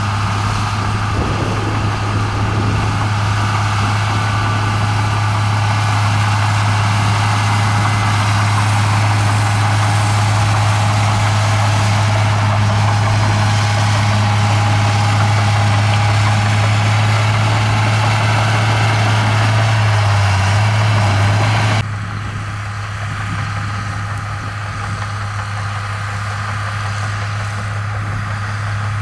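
Komatsu bulldozer's diesel engine running steadily with a deep, even hum and a busy mechanical clatter above it. About three-quarters of the way through, the sound drops suddenly and turns duller, the higher clatter largely gone.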